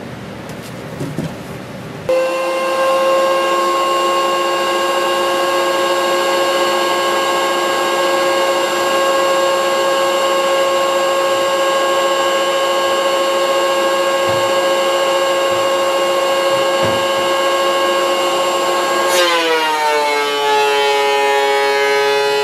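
Benchtop thickness planer switched on about two seconds in, running with a steady high whine. Near the end there is a click and the pitch drops and holds lower as a board enters the cutterhead and loads the motor.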